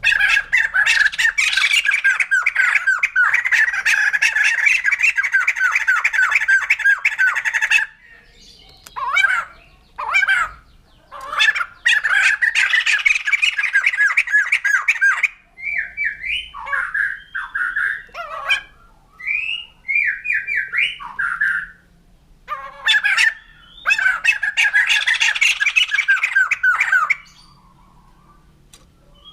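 White-crested laughingthrush calling: three long bouts of rapid, loud cackling chatter, the first about eight seconds long, with short whistled notes rising and falling between the later bouts.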